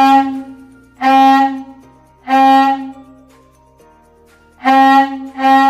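Homemade plastic-bottle air horn blown through a straw: five short honks of about half a second each, all on the same steady note.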